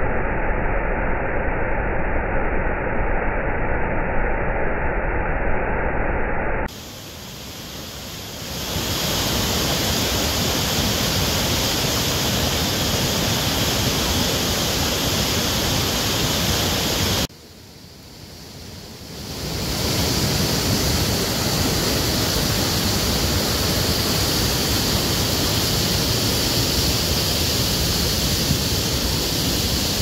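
Steady rush of the River Ribble's water pouring over the rock ledges of Stainforth Force waterfall. The first several seconds sound dull, with no high end. The sound drops away suddenly about seven seconds in and again about seventeen seconds in, then swells back over a couple of seconds each time.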